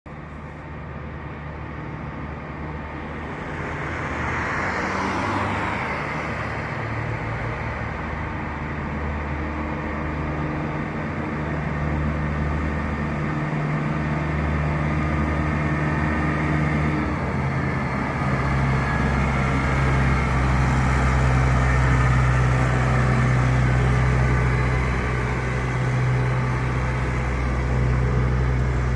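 Deutz diesel engine of an Atlas 1302E excavator running steadily as the machine drives along, getting louder over the first few seconds. Its note shifts about two-thirds of the way through, and a brief rushing noise passes about five seconds in.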